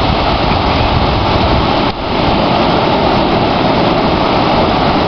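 Surf breaking and washing up a sandy beach: a steady, loud rush of noise, with a brief dip about two seconds in.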